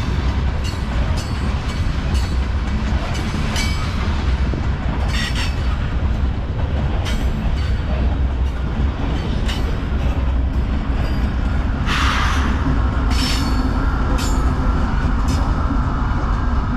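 Freight train of tank cars rolling past with a steady low rumble and wheels clicking over rail joints. About twelve seconds in, a sudden screech sets in and a high wheel squeal lingers to the end.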